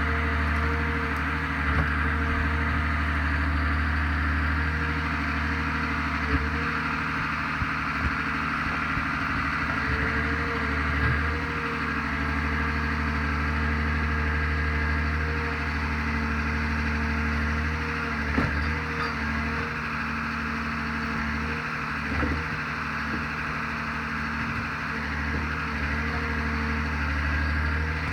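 Forestry forwarder's diesel engine running steadily while its crane unloads and sorts logs, with about five short, sharp knocks of logs being handled spread through.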